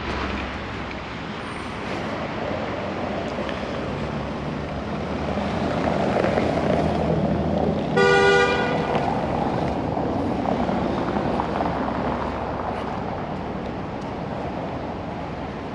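Street traffic with an engine running past, and one short vehicle-horn toot about eight seconds in, the loudest sound.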